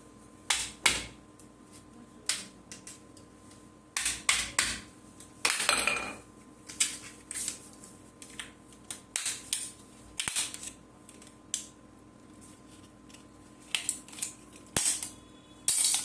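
Plastic case of a laptop battery pack being tapped and pried open with a flat-head screwdriver and hammer. It gives irregular sharp knocks and cracks, some single and some in quick clusters, loudest around five to six seconds in and near the end.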